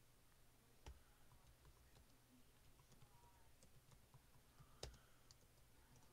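Faint computer keyboard key clicks from typing, scattered and quiet, with two sharper, louder keystrokes: one about a second in and one near five seconds.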